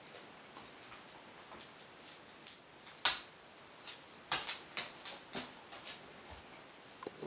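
Greyhound shredding a magazine: a run of sharp paper rips and crackling rustles, most of them in the first five seconds, thinning out near the end.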